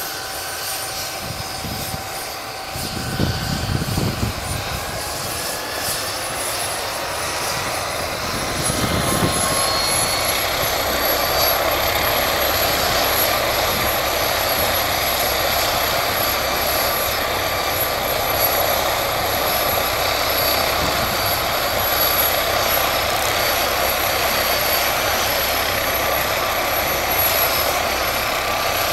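Helicopter on the ground running up its turbine engine and rotor: a whine rises in pitch and the sound grows louder over the first ten seconds or so, then holds at a steady full-power roar of turbine and rotor. Low buffeting thuds on the microphone come twice, at about three and nine seconds in.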